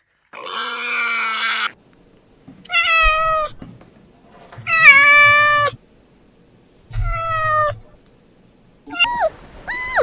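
A series of animal calls. A harsh, noisy cry comes first, then three separate drawn-out pitched cries, each falling slightly in pitch, and a few short high calls near the end.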